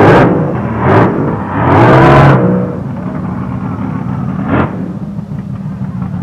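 Fuel altered drag car doing a burnout: its engine is blipped hard in loud bursts. There are short blasts right at the start and about a second in, and a longer rev around two seconds with the pitch swinging up and down. A short rev comes near four and a half seconds, with the engine running lower in between.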